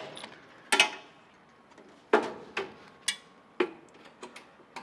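Sharp clicks and taps from a tool and metal mounting hardware being handled, about six of them at irregular intervals with quiet between.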